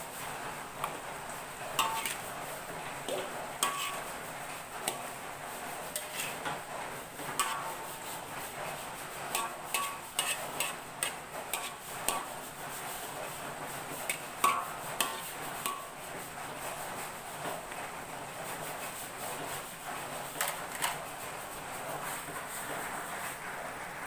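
Metal spatula scraping and clinking against a metal wok while stir-frying vegetables: irregular clusters of sharp clinks and scrapes over a steady hiss. The clinks stop a few seconds before the end.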